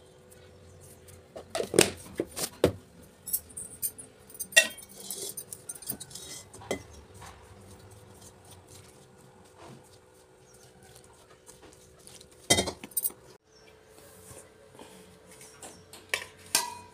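Flour being mixed and kneaded into dough by hand in a stainless steel bowl: the bowl clanks and scrapes against the stone counter, with a cluster of sharp metallic knocks about two seconds in and a few single ones later, and soft rubbing of hand and dough in between.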